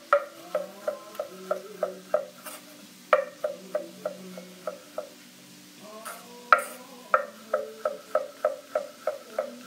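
Chef's knife slicing mushrooms on a wooden cutting board: the blade knocks on the board about three times a second. There is a short pause about halfway through, then the slicing starts again with one loud knock.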